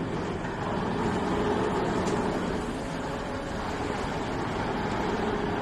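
Vertical glass milling and drilling machine running: a steady mechanical hum and hiss with a faint held tone, no distinct strikes.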